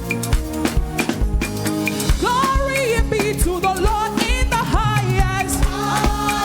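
Live praise-and-worship band playing upbeat music over a steady drum beat. About two seconds in, a melody line with vibrato joins above the chords.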